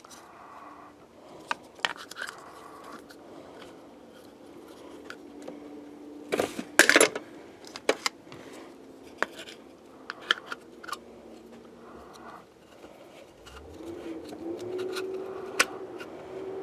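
Scattered light clicks, taps and scrapes of small hard parts and tools being handled on a power sliding door cable assembly, with a louder burst of clatter about seven seconds in. A steady drone comes in near the end.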